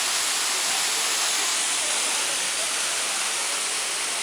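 Steady rushing hiss of a waterfall's falling water.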